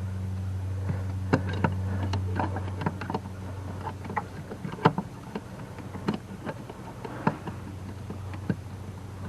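Scattered small plastic clicks and knocks as a brake light switch and its wiring plug are handled and fitted into the bracket at the brake pedal, over a steady low hum.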